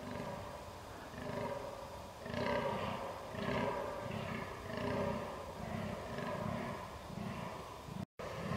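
Fallow deer buck groaning in the rut: a steady series of deep, belching groans, about two a second. The sound cuts out briefly near the end.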